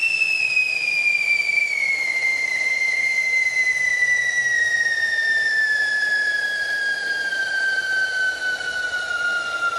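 Whistling firework on the ground giving one long, loud whistle over a rushing hiss, its pitch slowly falling throughout.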